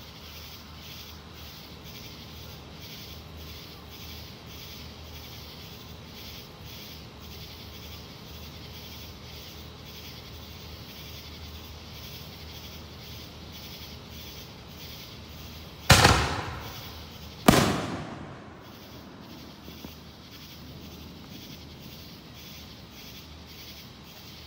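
Two loud firework bangs about a second and a half apart, each trailing off in an echo, followed by a couple of faint distant pops.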